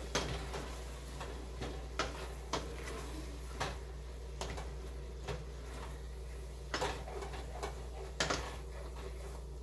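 A cooking utensil knocking and scraping against a stainless steel pot during stirring, in irregular sharp clicks about once a second, over a steady low hum.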